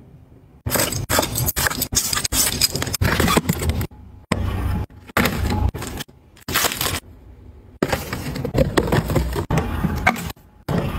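Close-up rustling and crinkling of product packaging being handled, first a cardboard box of chopsticks, then a plastic-wrapped dish cloth, with a used food packet dropped into a bin near the end. The sounds come in short clips that start and stop abruptly.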